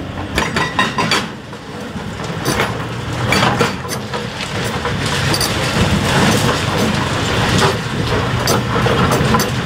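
Doosan excavators' diesel engines running under Epiroc hydraulic breaker hammers pounding a concrete bridge deck, with irregular sharp knocks and clatter as the concrete breaks up.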